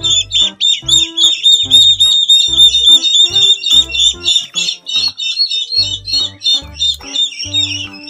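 Ducklings peeping rapidly and without pause, several short high chirps a second, over background music with a low bass line.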